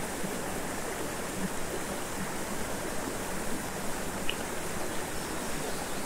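Mountain stream water rushing steadily, an even, unbroken hiss of flowing water.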